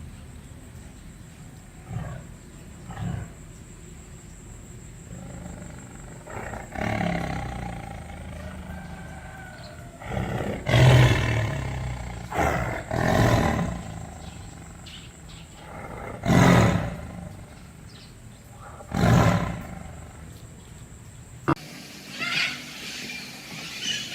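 A large animal calling loudly several times, each call about a second long, with pauses of a few seconds between them.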